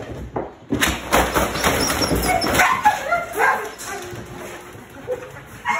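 Belgian Malinois whining and yipping excitedly, over a rapid clatter of its wire crate during the first half.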